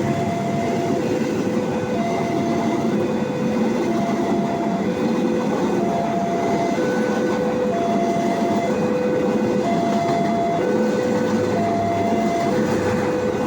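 KA Gajayana passenger train running past, a steady loud rumble of wheels on rail, while a railway level-crossing warning alarm sounds, alternating between two tones about once a second.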